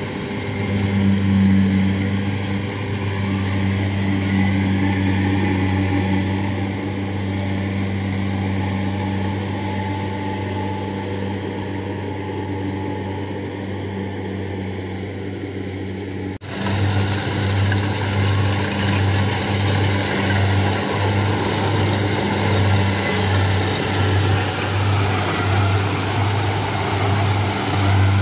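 Kubota DC-70 combine harvester's diesel engine running steadily under load as it cuts rice. About two-thirds of the way in the sound changes abruptly to a throbbing drone that pulses roughly twice a second.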